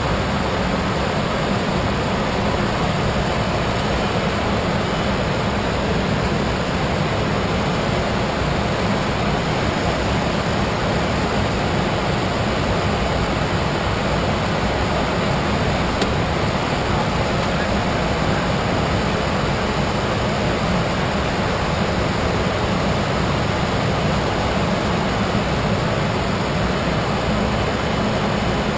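Steady rushing noise in a private jet's cockpit in flight: airflow and engine noise, heaviest in the low range.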